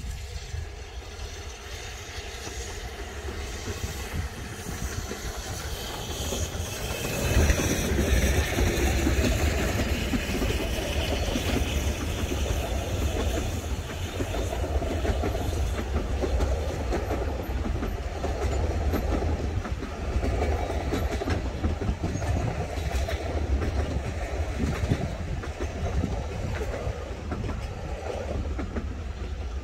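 Narrow-gauge steam train passing close by. The locomotive's approach builds to its loudest about seven seconds in, then a long line of carriages rolls past with a steady clicking of wheels over the rail joints.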